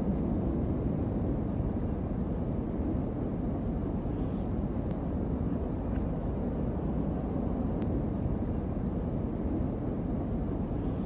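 Steady low rumbling roar of a large wildfire burning, with a couple of faint sharp ticks about five and eight seconds in.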